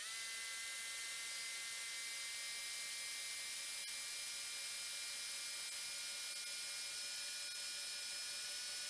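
Truck engine running at fast idle while its air compressor builds brake pressure, heard in 16x fast-forward as a steady high hiss with a few faint steady tones.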